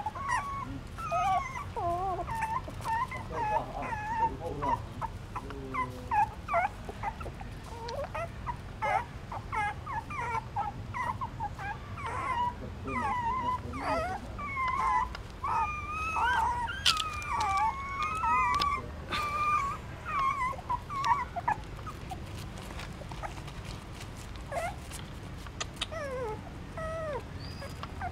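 Litter of newborn puppies squeaking and whimpering as they jostle at their mother's teats to nurse. The short high squeaks come thick and overlapping, then thin out after about twenty seconds.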